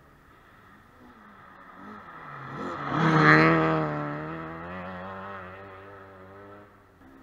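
Rally car passing at speed on a snowy gravel stage. The engine note builds to a loud peak about three seconds in, then drops in pitch and fades as the car goes away.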